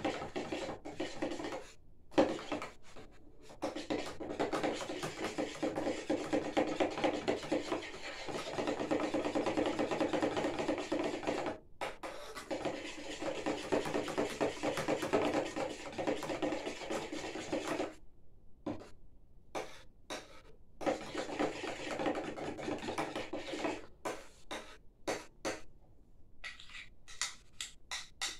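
A screwdriver stirring a tin of thick, lumpy POR-15 rust coating, scraping and rubbing against the tin, in stretches broken by brief pauses.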